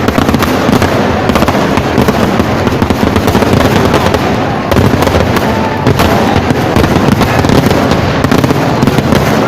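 Vedikettu fireworks barrage: densely packed firecrackers going off in a continuous, rapid crackle of loud bangs.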